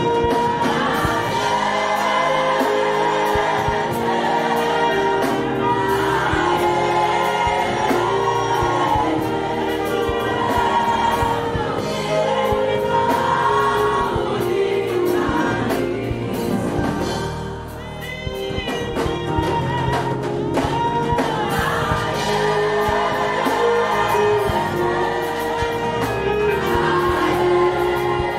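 Live gospel worship singing: a woman leads the song through a microphone, with other voices joining in, over a live band of keyboards and guitars.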